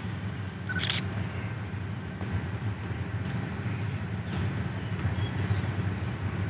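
Diesel-electric locomotive's engine rumbling low and steady as it approaches, with light ticks about once a second.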